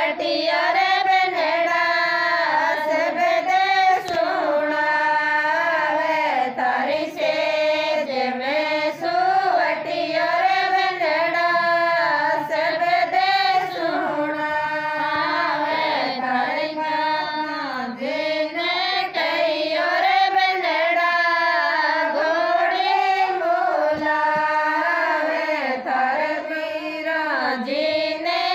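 A woman's high voice singing a Rajasthani banna-ghodi wedding folk song, one continuous melodic line with long bending notes.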